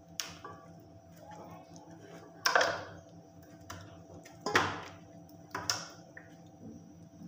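A hand pressing and turning chicken pieces in a yogurt-spice marinade inside an enamel pot, making about four short knocks and slaps against the pot.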